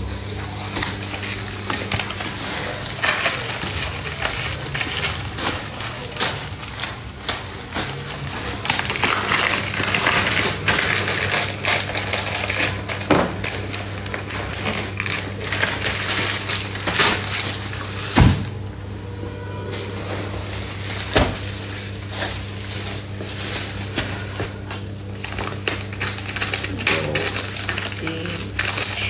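Rustling plastic packaging and irregular clicks of small cosmetic items, brush sets and palettes, being handled and set into a cardboard box, with a steady low hum underneath. One sharper click comes past the middle.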